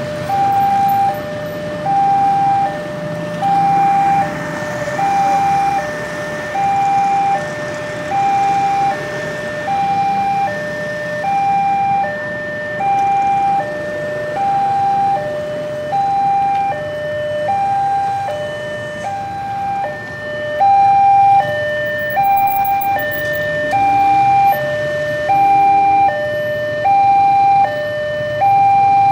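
Railway level-crossing warning alarm sounding its two-tone chime: a higher and a lower note alternate, each about 0.7 s long, repeating evenly without a break, signalling that a train is approaching and the barriers are down. Motorcycle engines pass underneath.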